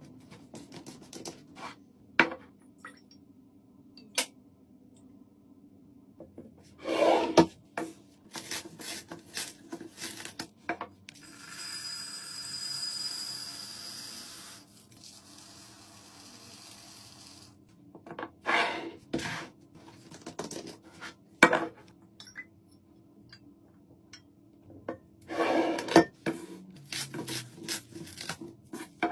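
Close-up handling of laundry containers: taps, knocks and clicks of a plastic bottle and cardboard boxes on a stone countertop. Around the middle comes a steady pour of small scent beads from a cardboard box into a glass bottle, lasting several seconds and fading toward its end.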